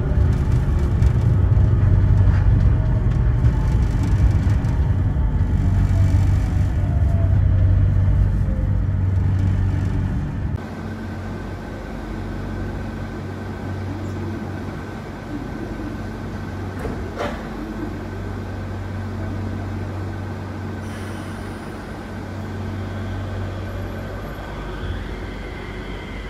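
Sengkang LRT automated people-mover train running with a loud low rumble and a whine falling in pitch as it slows. About ten seconds in, the rumble drops away suddenly, leaving a quieter steady hum with a single click midway and a whine rising near the end.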